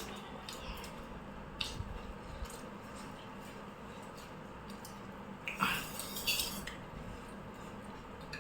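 Utensils clinking and scraping against plates during a meal: a few scattered light clicks, then a brief louder cluster of clatter about six seconds in.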